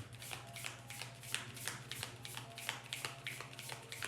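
A deck of tarot cards being shuffled by hand: a quick, uneven run of soft flicks, about five or six a second, over a steady low hum.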